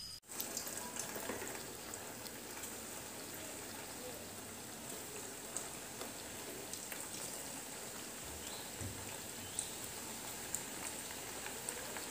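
Balls of bread, egg and coconut dough deep-frying in hot oil in a metal kadai: a steady sizzle with scattered small pops.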